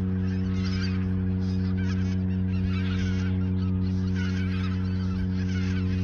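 A flock of greater white-fronted geese calling together, a dense, continuous chorus of overlapping honks and yelps. A steady low hum runs underneath.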